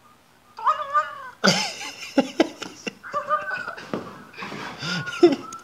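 Cat-like wailing and meow-like cries that waver up and down in pitch, several in a row, starting about half a second in, with louder, harsher cries in between.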